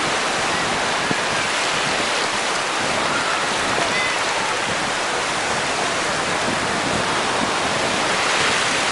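Ocean surf washing through the shallows, small waves breaking and rushing in a steady hiss.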